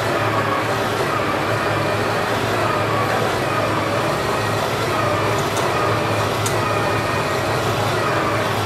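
Steady drone of workshop machinery: electric motor hum with a constant low mains-hum tone and machine noise, with a few light clicks a little past halfway.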